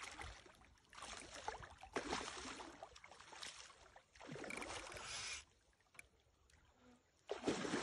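Water sloshing and splashing in irregular bursts, each lasting up to about a second, with a quieter stretch of about two seconds before a last splash near the end.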